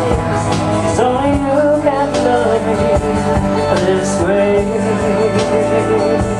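Country song in an instrumental passage between sung lines, with a plucked guitar melody over a steady backing.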